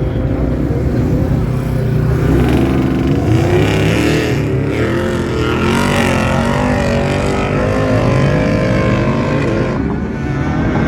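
Engines of off-road vehicles revving, their pitch rising and falling over a constant low rumble.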